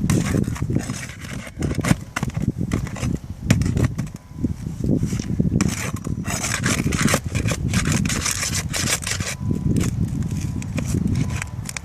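Irregular scraping, rubbing and clicking from work on a shingle roof around a soil stack flashing.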